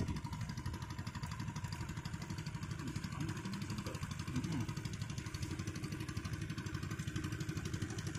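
A small engine running steadily at an even, rapid putter.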